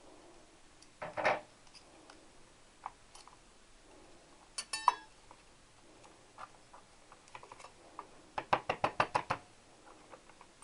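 Sharp metallic clicks and knocks of motorcycle clutch plates and parts being worked out of the clutch basket. There is a single knock about a second in, a short cluster of clicks midway, and a quick run of about ten clicks near the end.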